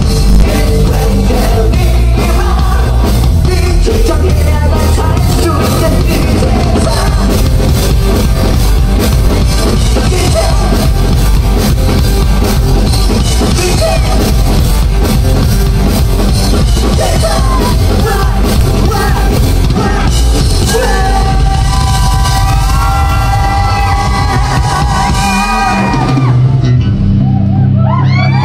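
Live rock band playing loud, with drums and a singer at the microphone. About twenty seconds in, the drumming thins out and long held notes ring on.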